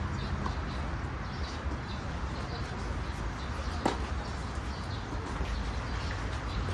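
Outdoor ambience: a steady low rumble with faint bird chirps, and a single sharp knock about four seconds in.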